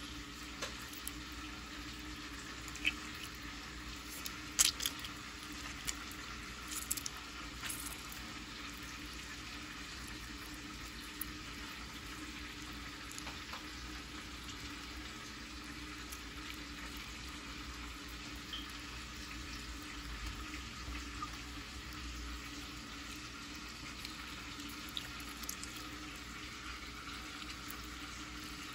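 Steady low hiss with a faint hum, broken by a few soft clicks and taps as hands rub seasoning onto a whole raw fish on a plate; the loudest clicks come about five seconds in and again around seven to eight seconds.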